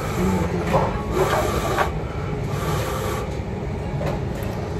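A person slurping thin tonkotsu ramen noodles from the bowl: two drawn-out slurps, one about a second in and one around three seconds in, over a steady low hum.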